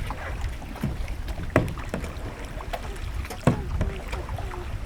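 Kayak being paddled, with three sharp knocks of the paddle against the hull and a low wind rumble on the microphone.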